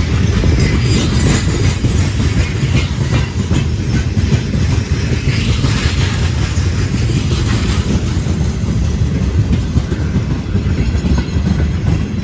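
Freight wagons (open gondolas and tank cars) rolling past at close range: a loud, steady rumble of steel wheels on the rails with irregular clatter from the wheels and couplings.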